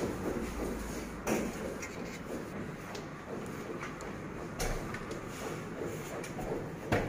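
Handling clatter: three sharp knocks, about a second in, past the middle and near the end, the last the loudest, over a steady background hiss.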